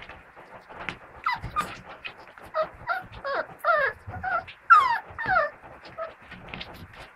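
Five-week-old puppies whining and yelping in a quick series of short cries that fall in pitch, bunched between about one and five and a half seconds in, with soft knocks of paws scrabbling in the box throughout.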